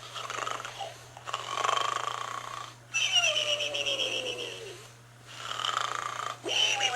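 A pig snoring: rasping snores in a slow rhythm, about one every one and a half to two seconds, some drawn-out breaths carrying a whistle-like tone that falls in pitch.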